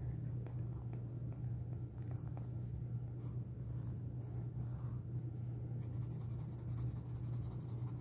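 Derwent Graphitint pencil scratching back and forth on paper, shading in a swatch, the strokes growing louder about six seconds in. A steady low hum runs underneath.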